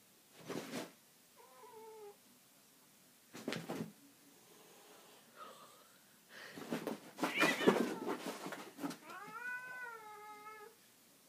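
A house cat meowing and yowling: a short meow about two seconds in, and a long drawn-out yowl near the end that rises and then falls. Between the calls come short sharp breathy bursts and a louder noisy stretch.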